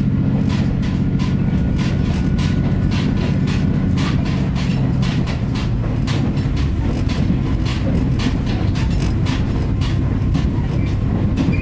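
Diesel railcar running along the line: a steady low rumble with a rapid, uneven series of clicks from the wheels passing over rail joints.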